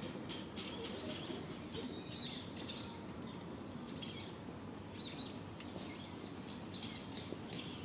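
Disposable wooden chopsticks burning in an aluminium Coke-can stove, crackling with sharp pops that come thickest in the first second and again near the end. Small birds chirp in the background.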